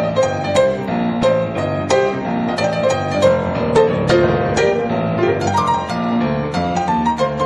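Background piano music, a run of single notes over sustained chords.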